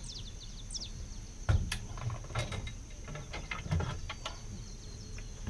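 Outdoor ambience of a steady high insect drone and a few short bird chirps in the first second, with scattered knocks and clicks from fishing tackle being handled on a wooden deck.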